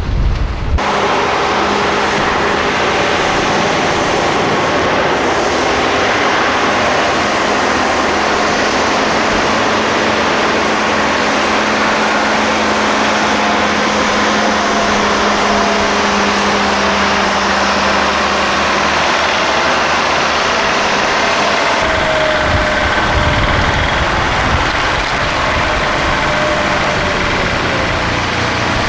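A heavy road vehicle's engine idling steadily, with wind buffeting the microphone from about three-quarters of the way in.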